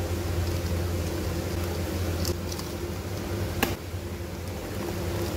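Brownie batter being mixed by hand in a steel bowl as flour goes in, under a steady low hum, with a sharp click a little over halfway through.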